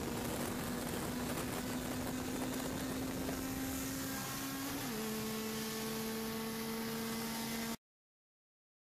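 Honda Civic's K20 four-cylinder engine running at a steady, held speed, its note stepping down slightly about five seconds in. The sound cuts off abruptly near the end.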